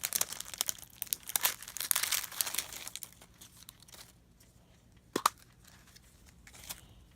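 Crinkly plastic wrapping of a blind-pack toy being torn open and crumpled, busy for about three seconds, then quieter with a single sharp click about five seconds in.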